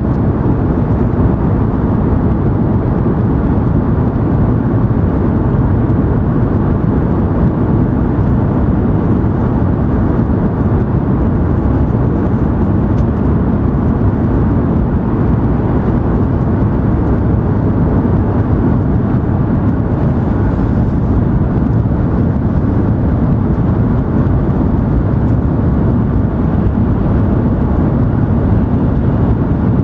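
Steady low rumble of an N700 series Shinkansen heard from inside the passenger car as it runs at speed.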